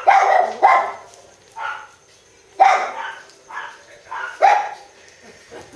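Puppy giving a string of short barks and yips, about eight in a few seconds, while asleep.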